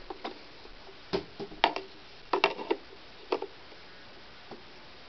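Scattered knocks and clicks, about six in the first three and a half seconds, as a hose converter is fitted into a Hoover Convertible upright vacuum, which is switched off.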